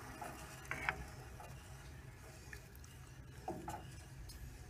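Faint stirring of liquid in a pot with a wooden spatula: soft swishes and a few light taps, over a low steady hum.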